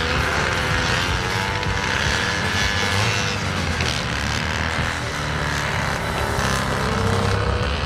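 Vintage racing motorcycles running on an asphalt track, engine notes gliding up and down, one rising steadily near the end. Background music plays at about the same level.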